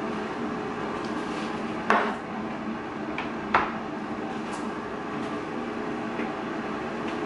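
Two sharp knocks about a second and a half apart as a glass bowl and a plastic cutting board are set down on a granite countertop, over the steady fan hum of a running air fryer.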